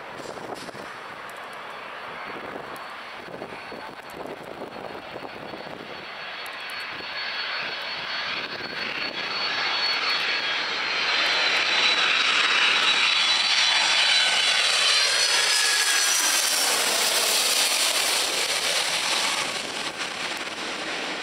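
Twin-engine jet airliner on final approach with gear down, passing low overhead. The engine roar and whine build up, the engine tones glide down in pitch as it goes by, and the sound fades near the end.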